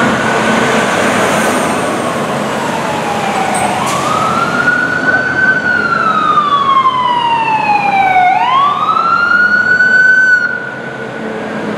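Fire truck siren wailing on a responding engine: the pitch climbs and falls slowly, with one long fall and then a quicker rise a little over two thirds in. It drops in loudness near the end.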